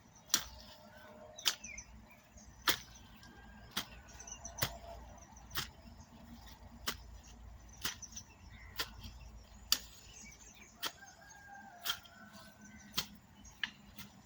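Repeated strikes of a hand farm tool, about one stroke a second at a steady pace, with birds chirping faintly in the background.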